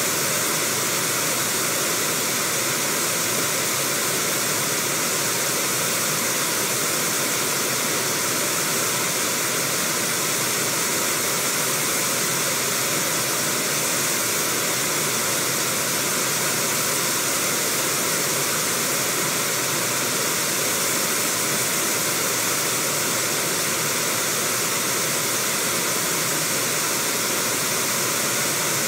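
Steady rushing of Brooks River rapids, water pouring over rocks in a constant, unbroken roar.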